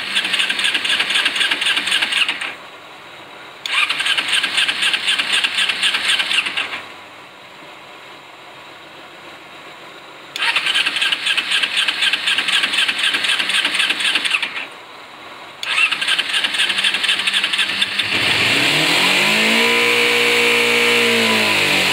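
2007 Kawasaki Ninja 250's parallel-twin engine being cranked on the electric starter in four separate tries of two to four seconds each. Near the end it catches and runs, its revs rising and then falling. It is a hard start after the bike has sat unused.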